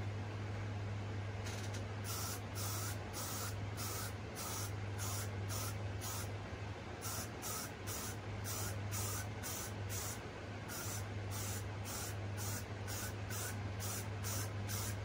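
Aerosol can of got2b Glued hairspray sprayed in many short puffs, two or three a second, onto a latex mask's wig to stiffen the hair. The puffs begin about a second and a half in and pause briefly around the middle. A steady low hum runs underneath.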